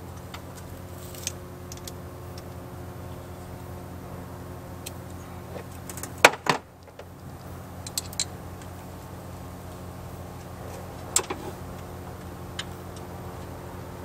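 Metal tools and parts clicking and clinking as they are handled in a pickup's engine bay, with a louder clatter about six seconds in and a few lighter clicks around it. A steady low hum runs underneath.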